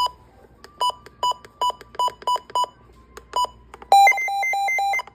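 Electronic beeping from a weather radio receiver: about eight short beeps on one pitch, unevenly spaced, then about four seconds in a second-long burst of rapid beeps warbling between two tones.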